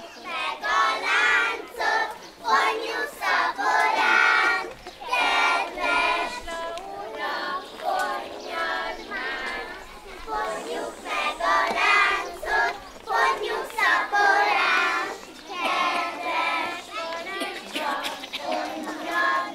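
A group of young children singing a folk song together in chorus, phrase after phrase with short breaks for breath, as they dance a ring dance.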